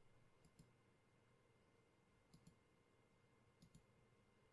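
Faint computer mouse clicks against near silence: three quick pairs of clicks, each pair a button pressed and released.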